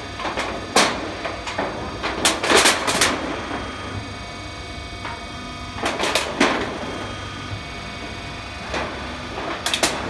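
Hydraulic crimping machine curving a corrugated metal roof panel: a steady low machine hum with irregular sharp clatters and rattles of the sheet metal, several in quick succession about two to three seconds in and again around six seconds in.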